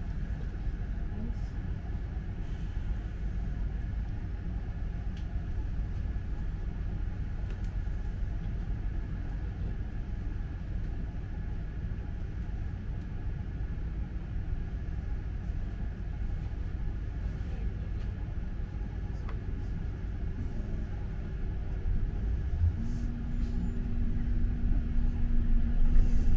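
Low rumble of a London double-decker bus's engine and road noise heard from inside the bus as it rides. About three-quarters of the way through a low steady drone comes in and the noise grows louder.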